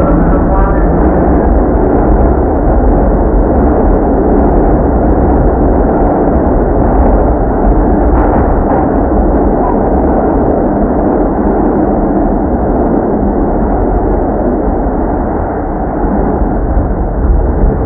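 New York City subway car running between stations, heard from inside: a loud, steady rumble and rattle of wheels on the rails, with a few sharper clacks about eight seconds in.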